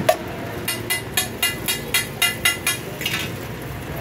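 Steel cooking utensils clinking against metal at a flat griddle. There is one sharp strike at the start, then a quick run of about eight ringing metallic clinks, roughly four a second, over a steady background of street-stall noise.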